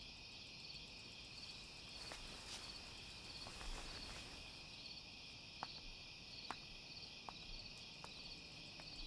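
Faint night ambience of crickets chirping steadily in a regular pulse, with a few soft, evenly spaced footsteps walking away.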